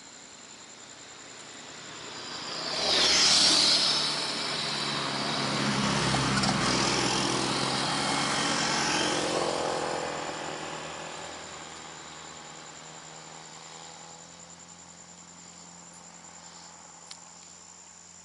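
A motor vehicle passing close by on the road. Its engine and tyre noise swells about three seconds in, with a sharp hiss at its loudest, stays up for several seconds, then fades away.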